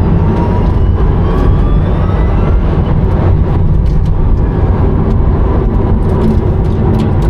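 Rimac Nevera electric hypercar heard from inside the cabin, with loud, steady road and tyre rumble. A thin electric-motor whine rises in pitch over the first couple of seconds as the car gains speed, and a few light knocks come through in the second half.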